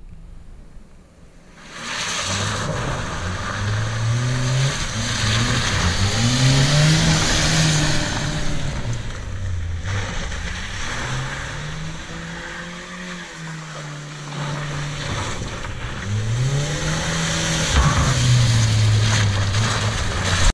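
Car engine heard from on board, revving up and dropping back again and again as the car is driven hard around an autotest cone course, over a steady rushing hiss of tyre and road noise. It gets loud about two seconds in.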